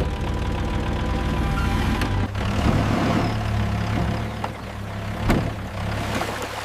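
Excavator engine starting up and running steadily under background music, with a couple of sharp knocks about two and five seconds in.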